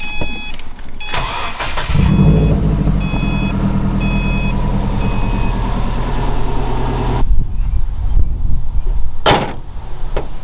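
Subaru WRX cranked and started after an oil change, catching about two seconds in and idling steadily while a dashboard warning chime beeps repeatedly. It is run briefly to circulate the fresh oil so the dipstick level can settle. The engine sound cuts off abruptly, followed by rustling and a sharp knock near the end.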